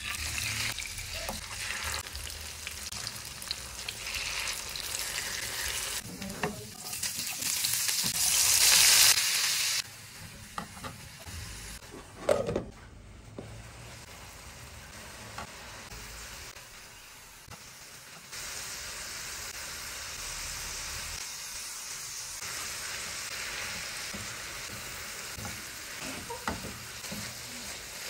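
Tofu and chopped vegetables frying in oil in a nonstick pan: a steady sizzle that swells much louder about seven to ten seconds in, a sharp knock about twelve seconds in, and a spatula stirring near the end.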